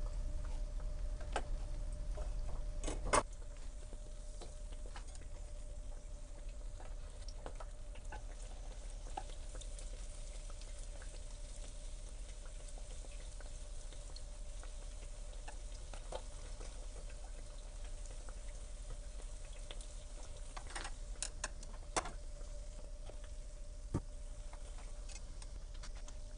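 Youtiao dough sticks deep-frying in hot oil in an electric deep fryer: a steady sizzle with small crackles. Now and then wooden chopsticks click sharply against the fryer as the sticks are turned. A faint steady hum runs underneath.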